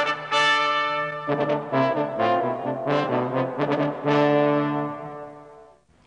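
Brass theme music playing a phrase of notes and chords, ending on a long held chord about four seconds in that fades out near the end.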